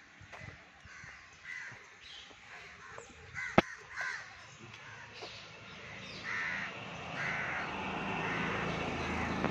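Crows cawing repeatedly, with a sharp click about three and a half seconds in. A low engine hum builds from about six seconds in.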